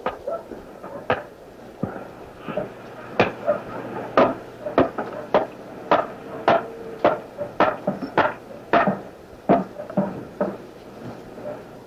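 Hatchet chopping into a curved piece of driftwood held upright on a chopping block: a run of short, sharp strokes, speeding up to about two a second in the middle and slowing near the end, roughing out a part of a kayak frame.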